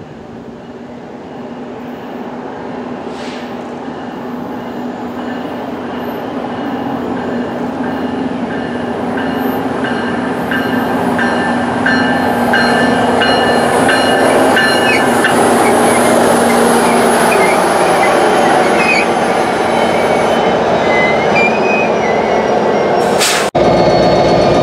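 NJ Transit PL42AC diesel locomotive pulling a passenger train into the station, its engine and wheels growing steadily louder as it comes close and passes, with light high squeals from the wheels or brakes toward the end. Near the end the sound breaks off for an instant and resumes louder and steady.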